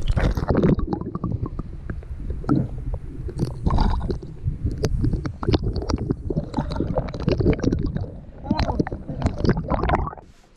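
Muffled sloshing and gurgling of water around a camera held under the surface, with many small knocks and bumps. It cuts off shortly before the end as the camera comes out of the water.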